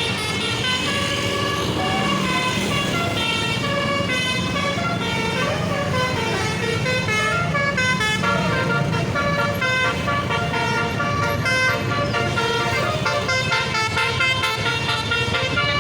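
Basuri telolet musical horn on a tour bus playing a long, unbroken melody: quick stepped notes, several horn tones sounding together.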